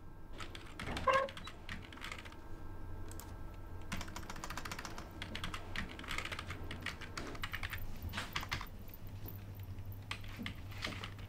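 Fast typing on a computer keyboard: a dense, steady run of key clicks.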